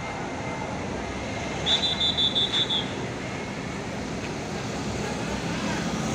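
Steady road traffic noise from passing buses. About two seconds in, a quick run of about six short, high-pitched tones lasts roughly a second.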